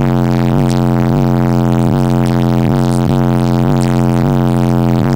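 Loud electronic music played through a car stereo's subwoofer, heard inside the car: a steady, heavy bass note that pulses about three times a second.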